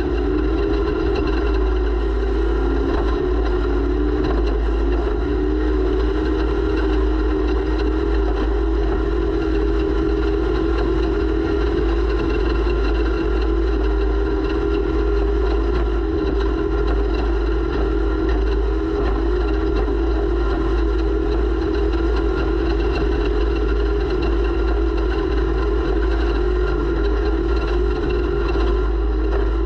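Off-road race vehicle's engine running hard at a nearly constant pitch, heard from an onboard camera, with a heavy low rumble from wind and the rough ride on the microphone.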